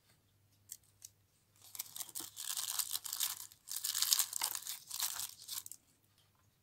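Crinkly packaging wrap being handled and crumpled by hand, in two crackling bursts of about two seconds each, after two light clicks about a second in.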